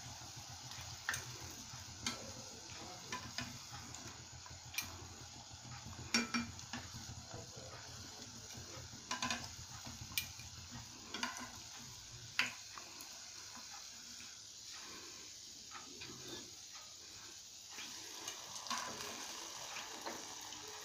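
Jalebi deep-frying in hot oil in a steel pot, a faint steady sizzle, with scattered sharp clinks of metal tongs against the pot as the pieces are turned and lifted out.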